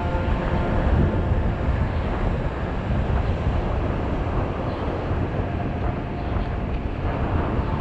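Strong wind buffeting the microphone: a steady, rumbling rush that keeps gusting.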